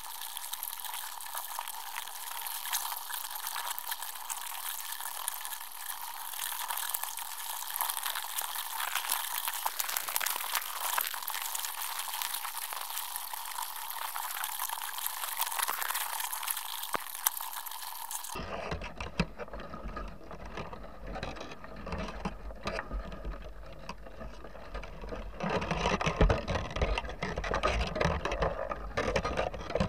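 Underwater sound inside a crab pot, heard through a GoPro housing and played twenty times sped up: a dense, high crackling hiss with nothing low in it. About eighteen seconds in it switches abruptly to real-time underwater sound: a low rumble with scattered knocks, louder near the end.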